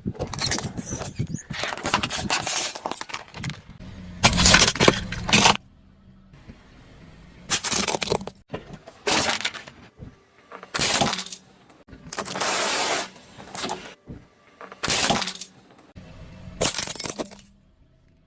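A string of short crunching and breaking sounds as objects are crushed, about eight separate bursts with abrupt starts and stops; the loudest comes about four seconds in.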